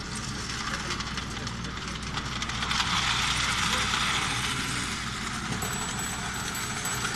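Carette O gauge tinplate toy train clattering along tinplate track, growing louder as it passes close by about three seconds in, then easing off.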